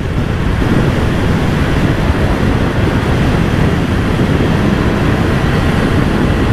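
Steady, loud wind rush on the microphone from riding a Ducati Scrambler motorcycle at speed, with the bike's running engine underneath.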